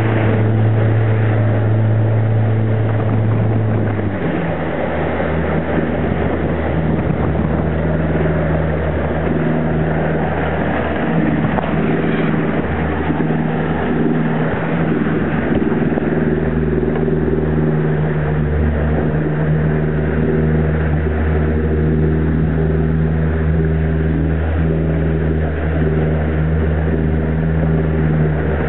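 Motorboat under way on a 50 hp outboard motor: a steady engine drone over rushing water and wind. About four seconds in the engine note drops to a lower pitch and then holds steady.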